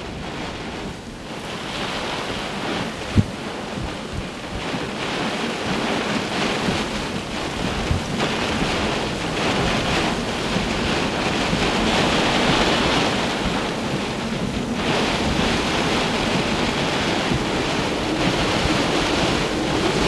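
Severe squall-line wind gusting to about 140 km/h, a loud rushing blast with wind buffeting the microphone. It builds over the first couple of seconds and is strongest about two-thirds of the way through, with one sharp knock about three seconds in.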